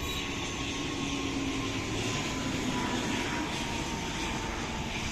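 An ATR twin-turboprop airliner flying low on approach to land: a steady engine and propeller drone with a faint hum that slides slowly lower in pitch as it goes by.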